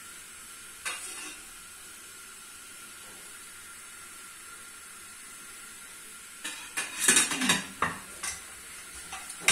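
Steel spoon and lid clattering and scraping against an aluminium cooking pan of chicken liver, tomatoes and onions, in a cluster of sharp clinks about two-thirds of the way in and again at the end, over a steady low hiss.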